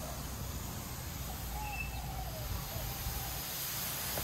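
Garden hose spray nozzle watering a lawn: a steady hiss of water spray, with a few faint bird chirps about a second and a half in.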